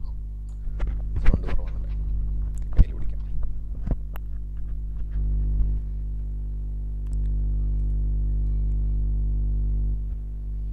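Steady electrical mains hum with a ladder of harmonics in the recording chain. It steps up in level about five and seven seconds in, and a few short scattered sounds come in the first four seconds.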